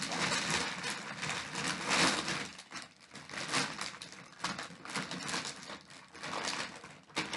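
Plastic mystery-figure bags crinkling and rustling as they are handled and opened, in uneven bursts.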